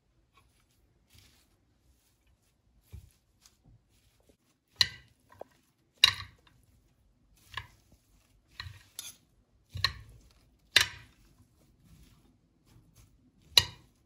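Metal salad servers tossing a leafy salad in a glass bowl, clinking sharply against the glass about seven times at uneven intervals over the second half.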